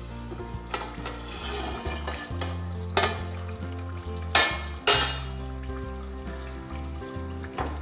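Mutton curry simmering and sizzling in a metal cooking pot, with three sharp metal knocks of the pot and its lid about three, four and a half and five seconds in. Background music with a low bass line plays underneath.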